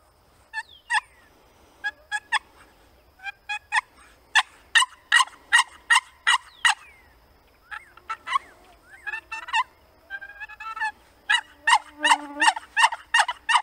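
A hand-held turkey call being worked: runs of short, raspy hen yelps, with a faster run of notes near the end.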